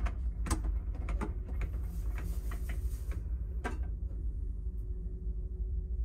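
Steady low rumble with a faint hum, typical of a car ferry's engines heard aboard, with a run of light clicks and knocks in the first three or four seconds that stops about two thirds of the way through.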